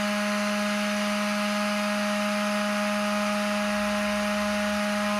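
Small electric motor spinning a homemade jet fan's impeller at a steady speed: a steady hum with a hiss of moving air.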